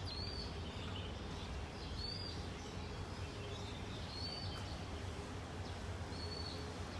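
Birds giving short, high chirps every second or two over a steady low background rumble.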